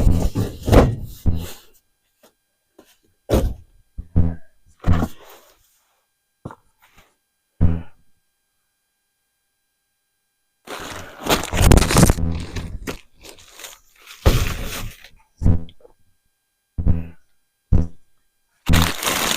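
Gear being packed into a storage container by hand: a string of separate knocks and thunks. Just before halfway there is a longer stretch of about two seconds of scraping and rattling.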